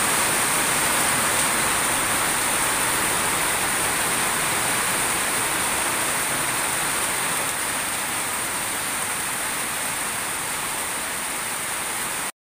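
Heavy rain pouring on leaves, grass and wooden boards: a loud, steady hiss of rain that stops abruptly near the end.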